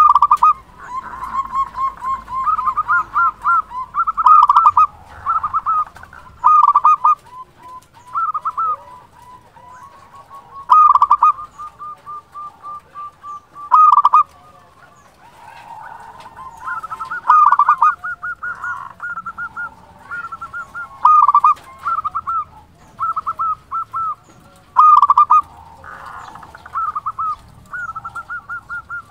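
Local Indonesian zebra dove (perkutut) singing: repeated phrases of rapid staccato cooing notes, a loud phrase every one to three seconds, with softer trilling notes in between.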